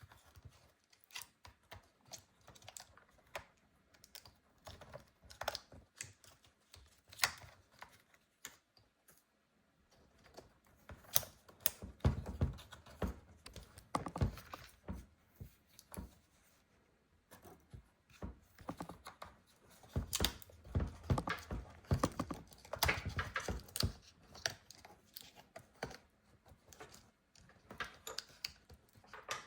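Irregular small clicks, taps and scrapes of a hand tool working against the inside of an opened MacBook Pro, clearing out leftover material in the battery bay, with busier, louder stretches of scraping about a third of the way in and again after the middle.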